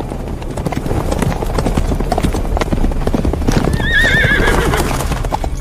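Horse hooves clattering in a quick, uneven run of hoofbeats, with a horse whinnying in a wavering call about two thirds of the way through.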